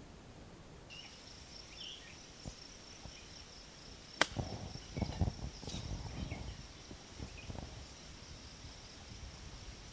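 A golf club strikes the ball with one sharp click about four seconds in, followed by a few seconds of low wind rumble on the microphone. A steady high insect trill runs underneath.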